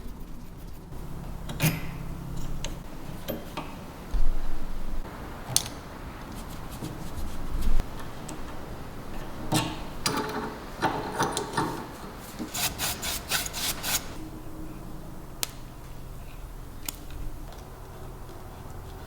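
Hand-tool work on small parts: rubbing and scraping with scattered clicks and knocks, two louder knocks about four and eight seconds in, and a quick run of about eight strokes a little past the middle.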